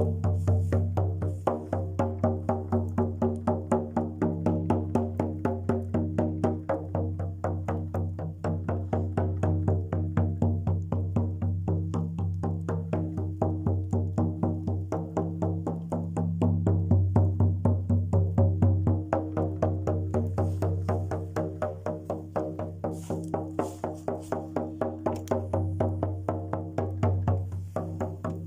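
Jaw harp (vargan) played with rapid, regular plucks over one steady low drone, the overtones above it shifting to make the melody.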